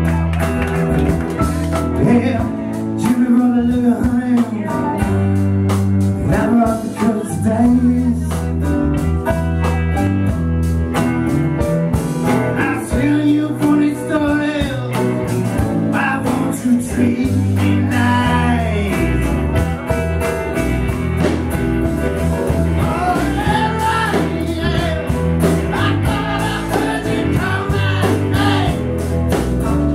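Live band music: a man singing full-voiced over his strummed acoustic guitar, backed by electric guitars and a steady low bass line.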